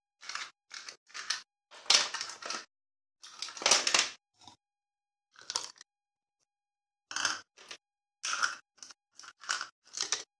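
Ice cubes being pressed out of a plastic ice cube tray into a glass: a series of short crackles and cracks with pauses between, loudest about two and four seconds in.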